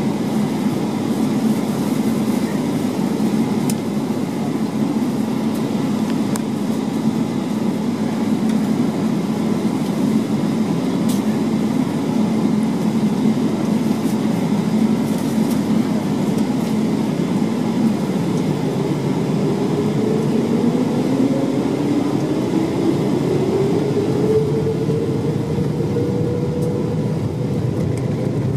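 Steady cabin rumble of a jet airliner on the ground, then about two-thirds of the way through the jet engines spool up with a rising whine that levels off near the end: thrust being set for takeoff.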